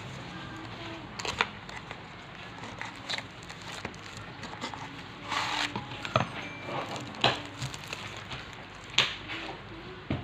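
Packaging being handled by hand: scattered light clicks and taps, with a short crinkle of wrapping about five seconds in.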